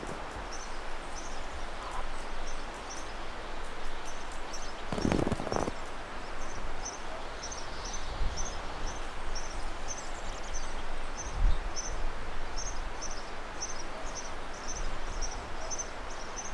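Outdoor ambience: a steady hiss of background noise with a short high chirp repeating about twice a second. A brief louder sound comes about five seconds in, and a low thud comes later.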